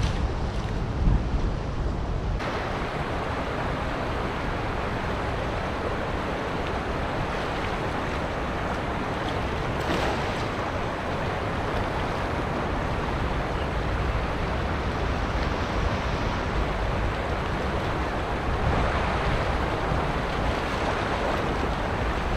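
Steady rushing noise of wind buffeting the microphone over the wash of open water, growing brighter about two seconds in.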